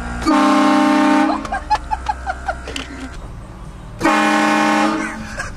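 Air-driven train horn with four trumpets, fed by an onboard compressor, sounding two loud chord blasts of about a second each, roughly three seconds apart.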